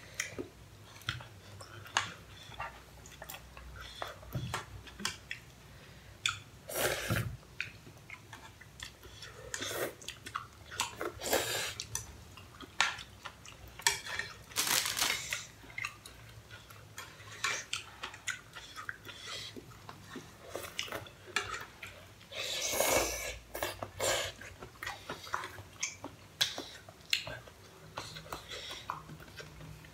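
Chopsticks and a metal fork clicking and scraping against a saucepan of pasta, with chewing. There are many small clicks and knocks, and a few louder scraping bursts.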